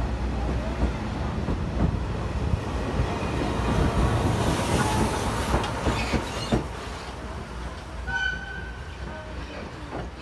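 A steam-hauled train, an 8620-class locomotive with its coaches, passing close by: a steady rumble with wheels clacking over the rail joints, loudest about five seconds in, then fading as it pulls away. Near the end there is a brief high whistle-like tone.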